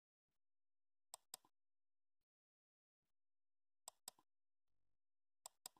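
Three mouse-click sound effects from a subscribe-button animation, each a sharp double click (press and release), about every two seconds over near silence.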